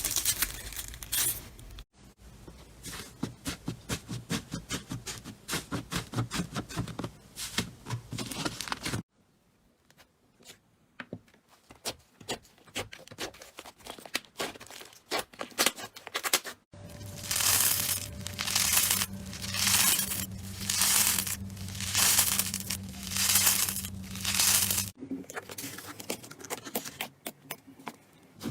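Slime being squeezed, poked and stretched, with dense crackling and popping clicks, in several short clips cut together. In the later clip the squishes come slowly and regularly, about once a second, over a low steady hum.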